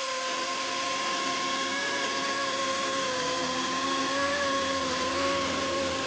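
Greenworks 80V brushless cordless chainsaw running with a steady high electric whine and chain noise, its pitch sagging a little in the middle and recovering.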